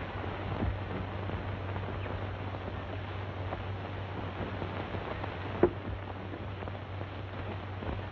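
Steady hiss and low hum of an old optical film soundtrack, with scattered faint crackles and one sharper click about five and a half seconds in.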